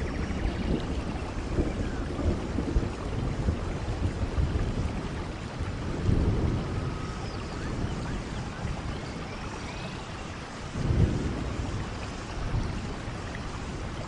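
Steady rain falling, with low rolls of thunder swelling about six seconds in and again, loudest, near eleven seconds. Faint high chirps of birds come through now and then.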